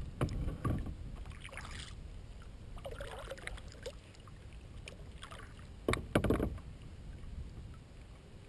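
Kayak paddling: the paddle blades dip and swish through the water, with two louder spells of knocking and splashing, one just after the start and one about six seconds in.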